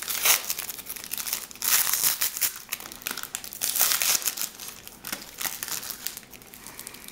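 Plastic wrapping of a sealed baseball card pack crinkling and tearing as it is opened by hand, in a run of irregular sharp crackles.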